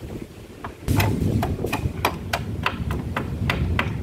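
Hand tool working on a motorcycle's front wheel axle as it is refitted after greasing the bearings: a run of sharp metal clicks, about five a second, starting about a second in.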